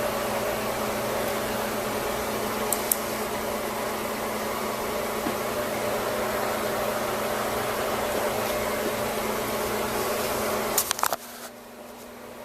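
A steady machine-like hum and hiss with a faint constant tone, broken by a pair of clicks about three seconds in; just before the end a quick cluster of clicks comes and the hum drops away sharply to a much quieter hiss.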